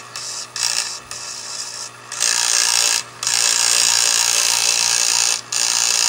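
Pedestal fan's electric motor running with its blade removed, a steady low hum. From about two seconds in, a screwdriver held against the spinning motor shaft makes a loud scraping hiss in long stretches, breaking off briefly twice.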